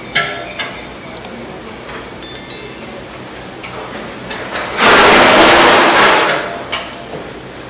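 Metal ladle clinking and scraping against a large metal pan as rice is scooped onto a plate, in short scattered clinks. A brief high ringing chime about two seconds in, and a loud rushing noise lasting about a second and a half from about five seconds in.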